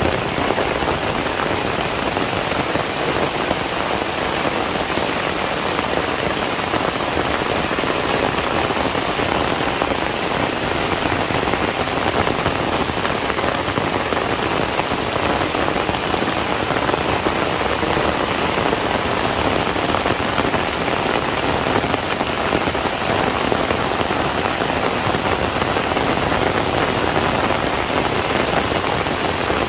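Heavy rain falling steadily on surfaces, a dense even hiss with no thunder.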